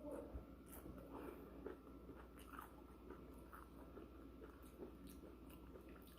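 A person chewing a mouthful of loaded nachos, with faint, irregular crunches of tortilla chips.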